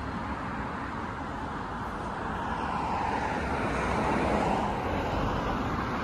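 Road traffic noise: a steady rush of tyres on the road that swells as a vehicle passes, loudest about four seconds in.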